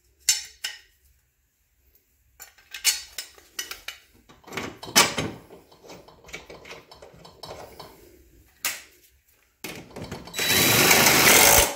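Metal clinks and knocks as a mower blade is fitted by hand onto its spindle under the mower deck. Near the end a cordless power driver runs for about a second and a half, tightening the blade bolt.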